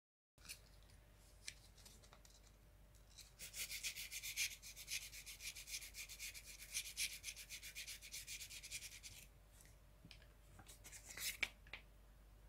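Sandpaper rubbed by hand in quick back-and-forth strokes, about four a second, over the face of a Betamax head drum's rotary-transformer disc, scrubbing off the old glue layer so the disc can be re-glued. The strokes start about three seconds in, stop a little after nine seconds, and a few more follow near the end.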